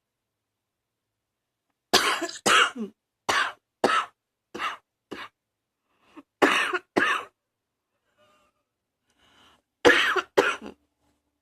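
A person coughing in fits: about six sharp coughs in quick succession, a short pause, two more, then two or three near the end, with faint breaths between. It is a lingering cough put down to allergies.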